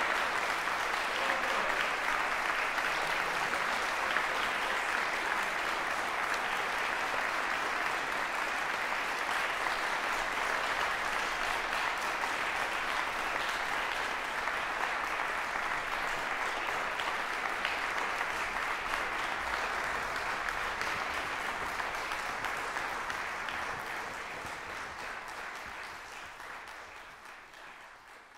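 Concert audience applauding, a dense steady clapping that fades away over the last few seconds.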